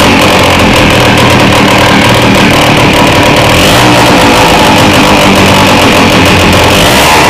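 Small two-stroke water-pump engine running steadily on a test run after being fitted with a homemade clutch and electric starter.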